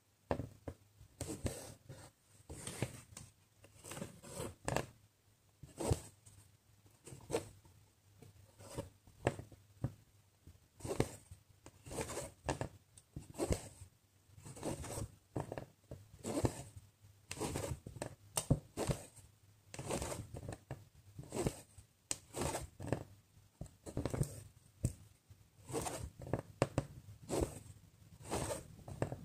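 Cross-stitch needle poking through the fabric and embroidery thread drawn through behind it. Short rasping pulls come again and again, about one or two a second.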